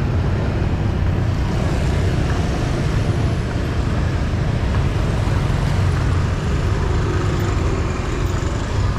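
Steady street traffic noise with a constant low rumble and no distinct single events.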